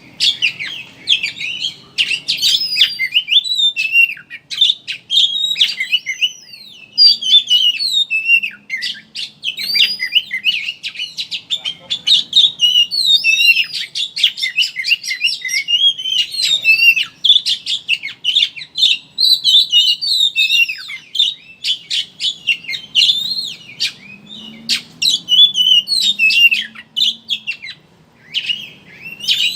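Oriental magpie-robin (kacer) singing in a fast, busy chattering twitter of short chirps, trills and whistles with only brief pauses, the 'ngeriwik' song style.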